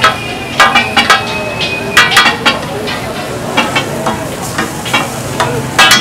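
Chicken pieces sizzling on a large flat iron tawa, with metal spatulas clanking and scraping against the griddle in quick clusters of sharp strikes, some ringing briefly.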